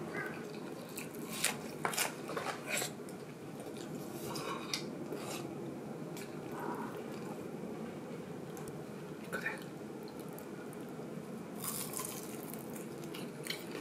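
A person eating a meal: scattered light clicks and knocks of chopsticks and a ceramic rice bowl against tableware, with chewing, over a steady low room hum. A denser cluster of clicks comes near the end.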